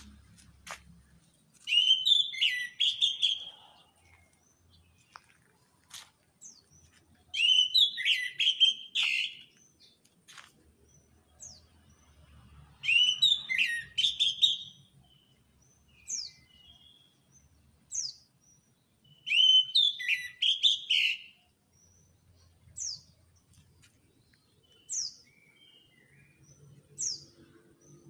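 Caged orange-headed thrush (anis merah) singing in full voice. It gives four loud, rich song phrases about five to six seconds apart, each lasting a second or two. Single short, high, falling notes come in between, more often in the second half.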